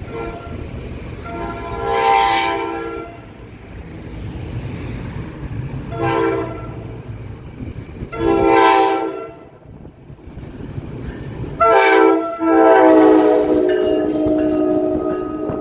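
A passing train's multi-chime air horn sounding five blasts: four shorter ones spread over the first twelve seconds, then one long blast held to the end. A low train rumble runs under the first half.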